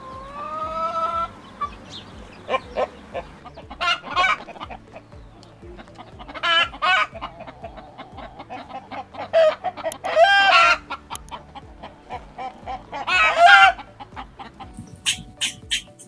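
A flock of chickens, hens and roosters, clucking, with several loud drawn-out calls rising above the clucks. Near the end, a quick run of high chirps, about four a second, takes over.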